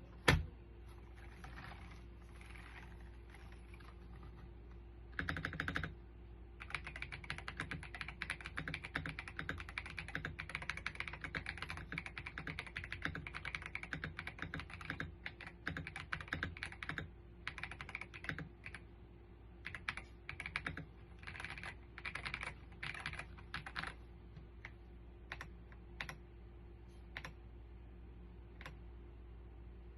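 Typing on an RK Royal Kludge R98 Pro gasket-mount mechanical keyboard with pre-lubed switches. A single sharp click comes near the start, then fast continuous key presses from about five seconds in, thinning to scattered single keystrokes in the last few seconds.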